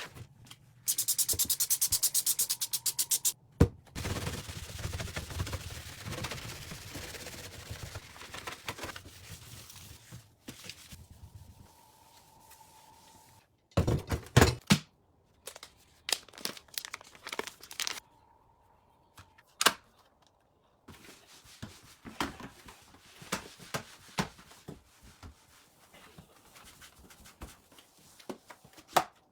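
Close-up household handling sounds: a fast, even run of clicks lasting a couple of seconds about a second in, then rustling and scraping, a pair of sharp knocks midway, and scattered light knocks and taps.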